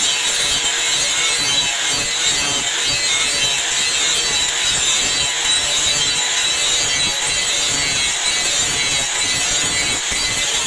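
Handheld angle grinder grinding the steel blade of a meat cleaver: a steady, harsh rasp of the abrasive disc on metal, with the motor's faint steady whine underneath.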